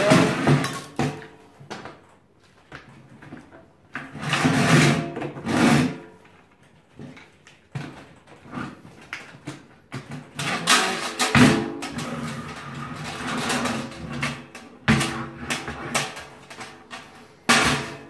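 Clanks, knocks and rattles from the stainless steel tank of an ash vacuum cleaner being handled and fitted together. The knocks come in irregular clusters, the loudest about four to six seconds in and again from about ten to fourteen seconds in.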